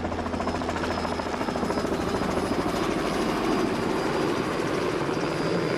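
Helicopter sound effect: a steady, rapid rotor chop with engine noise, at an even loudness throughout.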